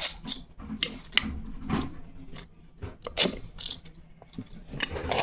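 Irregular clicks and taps of plastic Play-Doh toy tools and pieces being handled.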